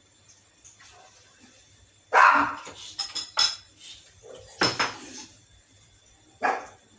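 A spatula stirring thick tomato spaghetti sauce in a metal pan, giving a few short scrapes and knocks against the pan, the loudest about two seconds in.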